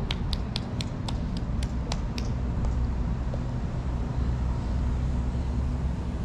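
A steady low rumble, with a quick run of about ten sharp clicks, about four a second, that stops a little over two seconds in.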